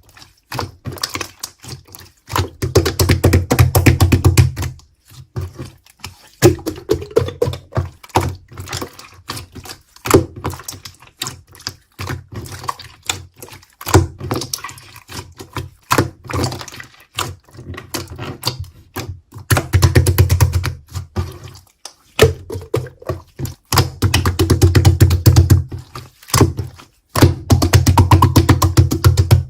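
Slime being squished and stretched by hand, with dense crackling clicks of small air pockets popping. Bouts of low thudding come from the slime being pressed, four times.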